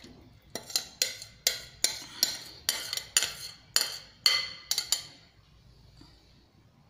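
A spoon knocking and scraping against the inside of a glass bowl in a quick run of sharp clinks, a dozen or so over about four seconds, as marinated cauliflower pieces are scraped out into a pan. The clinks stop about five seconds in.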